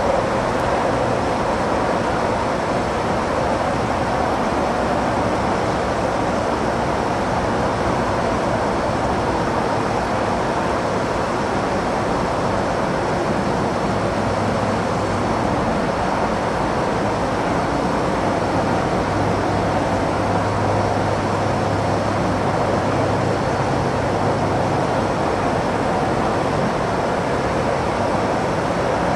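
Burning waste container: the fire's steady, unbroken roar with crackle, with a faint low hum coming and going in the middle.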